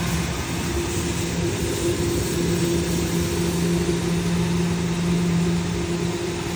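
E. Kaffes CVAT/4-6000/450 N industrial ventilation fan running steadily on test: an even rush of air with a steady low hum.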